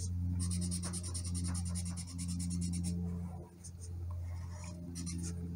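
A marker scribbling quickly back and forth on paper to color in a shape, in rapid, even strokes that pause briefly about three and a half seconds in and then resume. A steady low hum runs underneath.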